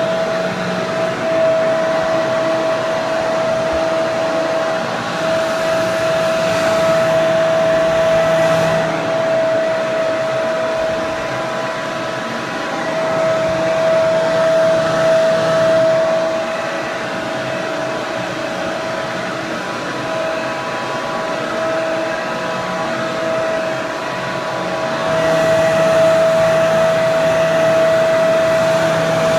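Hair dryer running continuously: a steady rush of air with one strong, constant mid-pitched whine above it, the loudness swelling and easing slightly every several seconds.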